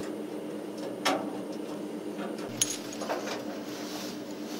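A few light metallic clicks and clinks from coaxial cable connectors being handled and fitted, three of them, about one, two and a half and three seconds in, over a faint steady hum.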